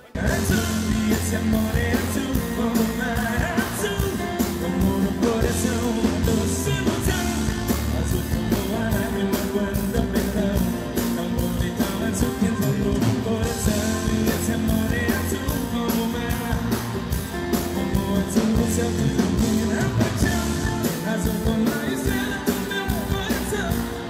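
Live sertanejo music from a stage show: a band playing with a steady beat, with a male voice singing.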